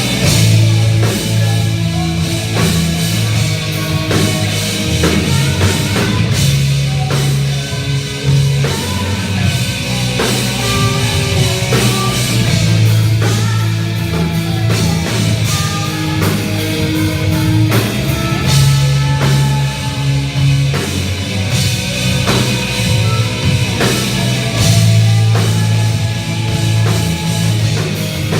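A live rock band playing hard: a pounding drum kit, heavy bass and guitars, with steady drum hits throughout.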